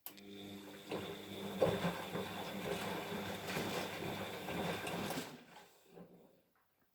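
Siemens washing machine's motor turning the drum for about five seconds during the silk-program wash, a steady motor hum with the load tumbling, then winding down and stopping. This is one of the short turns between long pauses of a gentle wash rhythm.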